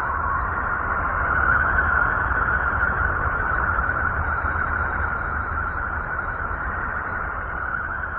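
The 'sound of Uranus', a space recording published by NASA: a steady hissing, whooshing drone with a low rumble beneath, swelling slightly about a second and a half in and easing toward the end.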